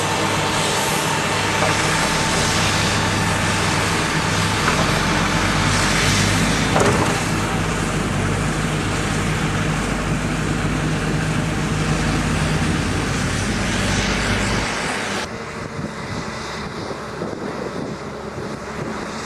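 Heavy-equipment diesel engine running hard, with a deep steady drone through the middle that falls away abruptly about fifteen seconds in.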